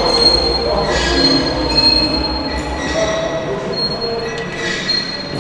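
Cable-pulley training machine squealing as the cable runs over its pulleys with each pull on the handle, in long, high, steady squeals that fade in and out.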